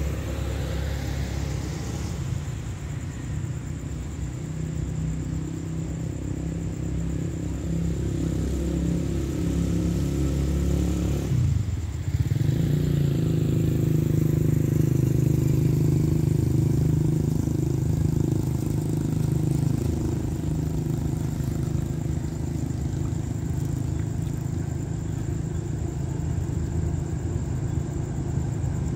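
Diesel locomotive engine running as the train approaches, a steady low drone; it dips briefly about twelve seconds in and then comes back louder.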